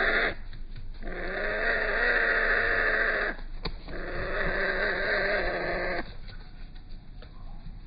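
Slowed-down bird calls: three long, wavering, low-pitched calls of about two seconds each, with short gaps between them and a sharp click between the second and third. They stop about six seconds in.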